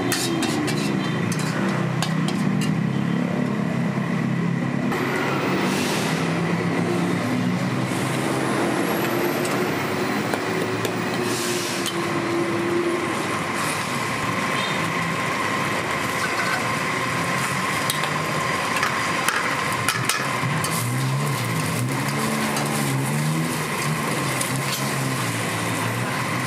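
Metal spatula scraping and clacking in a wok over a charcoal stove, with egg frying in the pan, against a steady street-traffic din and a constant high-pitched hum.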